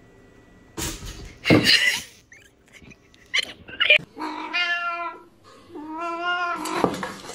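Domestic cat meowing: two drawn-out, wavering meows about four and six seconds in. Before them, about a second and a half in, comes a short, loud noisy burst, the loudest sound here.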